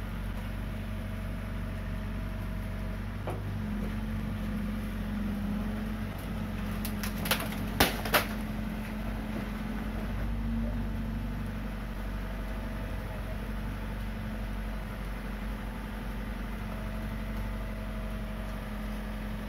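Komatsu PC45 mini excavator's diesel engine running steadily as the machine lifts and swings a concrete U-drain section. Three sharp knocks come in quick succession about seven to eight seconds in.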